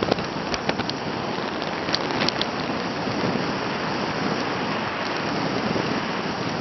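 Waterfall: a steady rush of falling water, with a few short sharp clicks over it.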